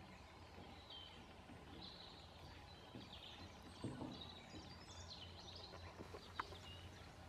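Faint birdsong: scattered high chirps and short whistles from songbirds, over a low steady hum. Two short sharp clicks stand out, a couple of seconds apart, in the second half.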